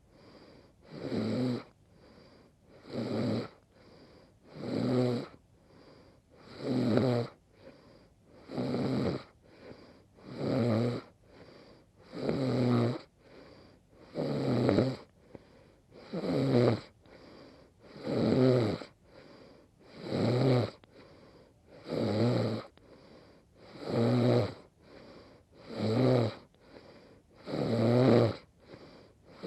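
A woman snoring in her sleep: a rasping snore about every two seconds, steady and regular, with a fainter sound between each pair of snores.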